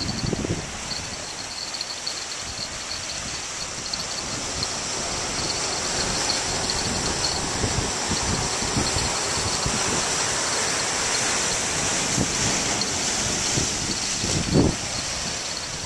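Steady wash of ocean surf breaking against shoreline rocks, with wind buffeting the microphone in a few short low thumps.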